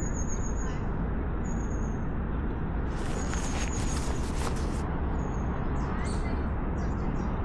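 Steady outdoor background noise with a deep low rumble, and a short high chirp that repeats about every second and a half. A burst of crackling rustle, like handling near the microphone, comes about three seconds in and lasts under two seconds.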